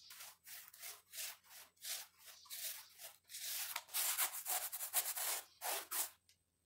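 Homemade paint being rubbed onto a wall in repeated scratchy strokes, about two a second, growing denser and louder in the second half.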